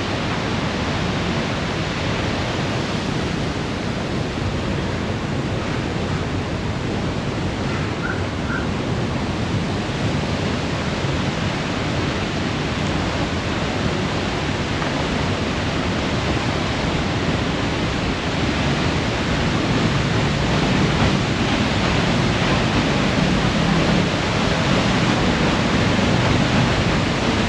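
La Paz Waterfall: a steady, unbroken rush of falling water.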